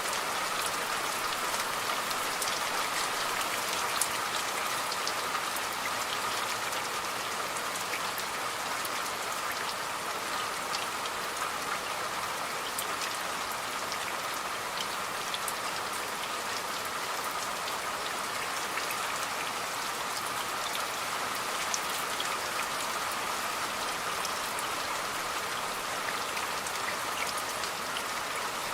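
Steady rain, a continuous even hiss with the sharp ticks of individual drops scattered through it.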